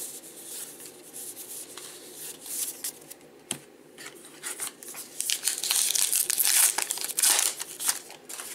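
A trading-card pack's foil wrapper being torn open and crinkled, loudest and densest in the second half, after some light clicking of cards being handled.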